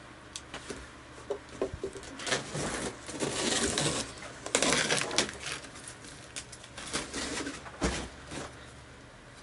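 A knife cutting through packing tape on a cardboard guitar box: scratchy slicing and scraping strokes, loudest in the middle, with lighter scrapes and knocks near the end.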